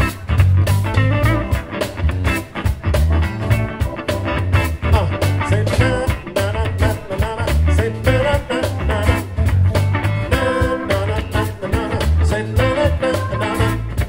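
Live band playing a song: a drum kit keeps a steady beat under a strong bass line and keyboard.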